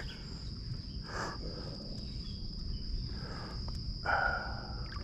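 Steady high-pitched drone of insects, over a low rumble of wind on the microphone. A few brief rustling sounds come through, the loudest about four seconds in.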